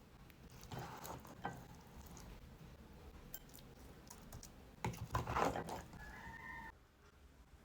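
Faint clicks and clatter of kitchen utensils and containers being handled, with a louder burst of handling about five seconds in and a short steady tone just after it.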